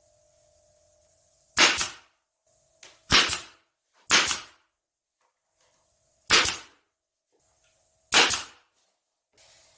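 Five sharp, loud impacts at uneven intervals, each dying away quickly, with a faint steady hum between them.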